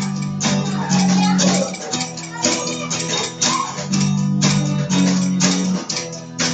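Electric bass guitar playing a line of held low notes over a steady percussive beat of about two hits a second.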